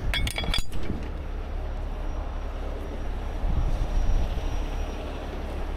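A few sharp metal clinks with a short ring in the first second as steel shackles knock against the hook, over the steady low running of the heavy rotator tow truck's engine.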